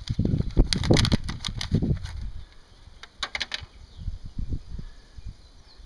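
Thin plastic nursery cell pack crinkling and crackling as a bedding plant is squeezed out of it, for about two seconds. A shorter burst of crackles follows about three seconds in as the plant is set into loose potting soil.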